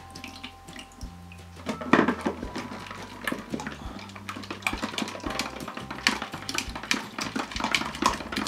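A wooden craft stick stirring thickening slime in a plastic cup, with quick wet squelches and clicks of the stick against the cup. The sodium tetraborate activator is being worked into the glue as it turns to slime. The stirring starts in earnest about two seconds in.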